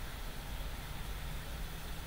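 Steady background noise: a low rumble with a constant hiss, unchanging and with no distinct events.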